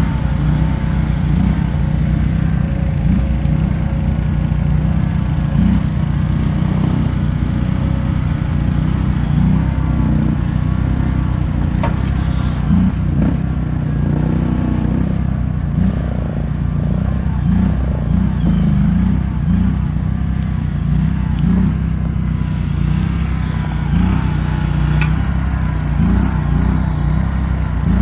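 A small engine running steadily at a low drone, with small rises and falls in load.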